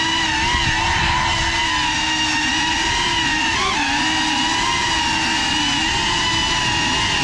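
Brushless motors and propellers of a GEPRC FPV quadcopter whining at a steady pitch as it flies, with a brief pitch wobble about halfway through as the throttle changes.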